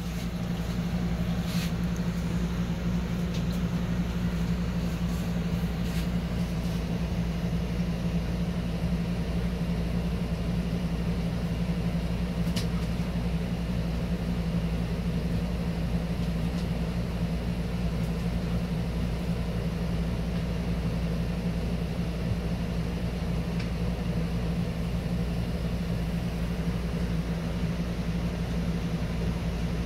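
Magic Chef compact top-load washer running its drain cycle: a steady motor hum as the pump empties the wash water out of the tub.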